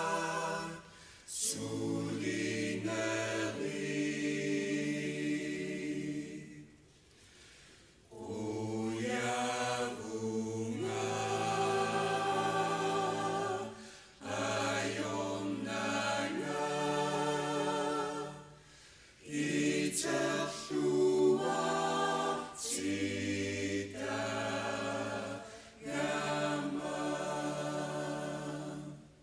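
A choir singing unaccompanied, in slow, held phrases of a few seconds each with short breaks between them.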